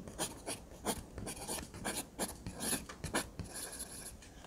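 Irregular scratchy rubbing strokes, about three a second, with a hiss between them.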